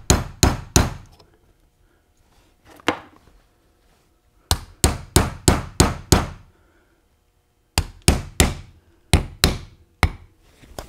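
Ball-peen hammer tapping the split pins into a Hurst Competition Plus shifter's steel body. The taps come in quick runs of three to seven, each with a short metallic ring, separated by pauses of a second or two.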